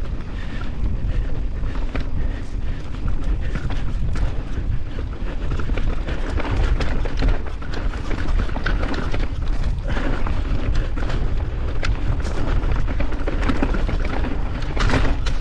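Steady low rumble of wind on the microphone while a mountain bike rides a muddy, rocky trail, with scattered clatters and rattles from the bike over the rough ground.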